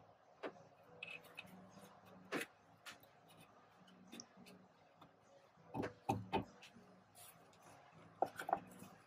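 Faint scattered clicks and knocks of hands fitting plastic intake parts in the engine bay, with a louder cluster about six seconds in and again near the end, over a faint steady low hum.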